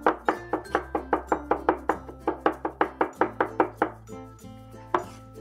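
Cleaver blade chopping rapidly on a wooden cutting board, about five strikes a second, mincing garlic and ginger; the strikes thin out near the end. Background music underneath.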